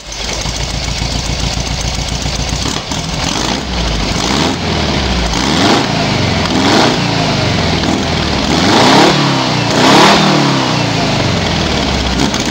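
An engine running and revved up several times, each rev rising and falling in pitch, the strongest revs near the end.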